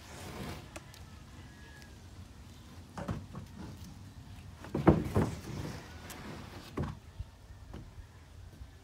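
Wooden knocks and thuds as a large wood sheet is handled and set against timber floor framing, with a soft rustle at first and the loudest cluster of knocks about five seconds in.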